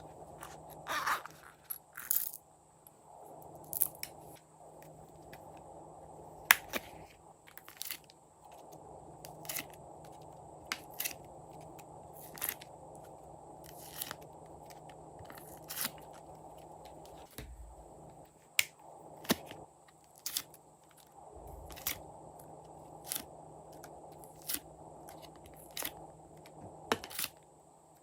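Glossy slime being kneaded and folded by hand, giving sharp little clicks and pops about once a second as air pockets burst.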